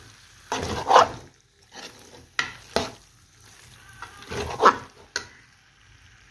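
Metal ladle scraping and stirring potatoes and eggs in a frying pan: about six irregular strokes over a light sizzle. A short sharp clack just after five seconds, then only the faint sizzle.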